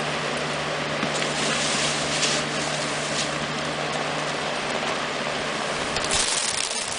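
A machine running steadily while threshed wheat is winnowed: an even low hum under a loud rushing noise of blown air.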